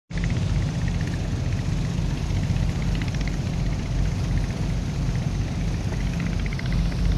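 An engine running steadily at an even speed, a constant deep hum with some mechanical noise above it, starting abruptly.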